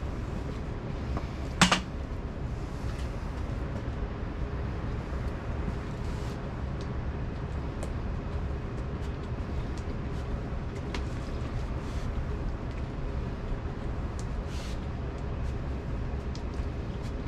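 Steady low rumble of a running engine, with one sharp knock about a second and a half in.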